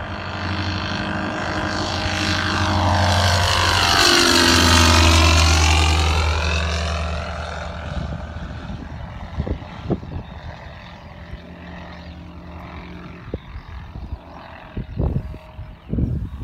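A light propeller plane flies low past, growing to its loudest about four to five seconds in, with its engine note sweeping in pitch as it goes by, then fading to a faint drone. Several short thumps come in the second half.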